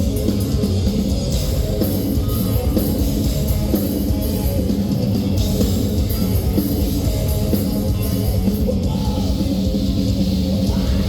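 Progressive death metal band playing live at full volume: distorted guitars, bass and drums with cymbals in a dense, unbroken wall of sound.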